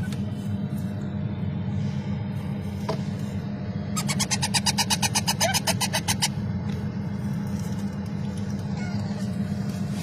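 A steady low hum, with a few faint short chirps; about four seconds in, a rapid pulsed chatter of roughly ten pulses a second lasts about two seconds, the sound of parrot chicks calling.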